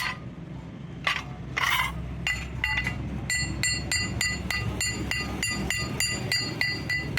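Metal struck lightly and repeatedly: ringing clinks at about three to four a second, after two brief scraping hisses near the start.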